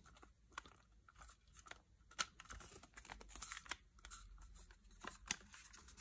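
Faint, irregular clicks and scrapes of a plastic flashlight attachment being handled and turned in the hands, with one sharper click about two seconds in.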